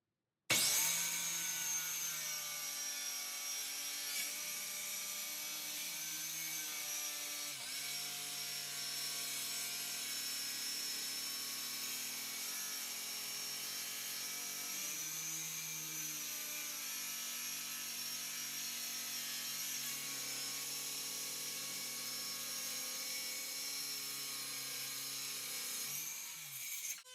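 Power saw cutting through a Corian solid-surface countertop: a steady motor whine with many overtones, its pitch dipping briefly now and then, stopping just before the end.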